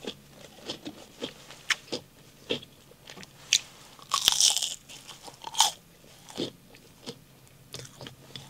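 Crispy, freshly fried Chicken McNuggets being bitten and chewed right at a handheld microphone: sharp crunches of the breading scattered throughout, with one longer, louder crunching bite about four seconds in.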